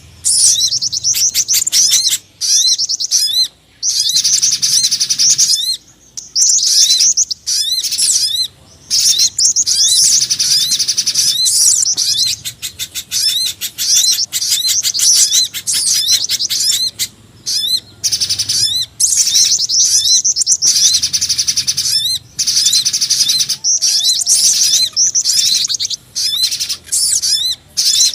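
Bird-lure recording of small songbirds, a mix of pijantung gunung (spiderhunter), sogon and jingjing batu calls, played as a continuous track. It is a rapid stream of high, sharp chirps in runs of a few seconds, broken by short gaps.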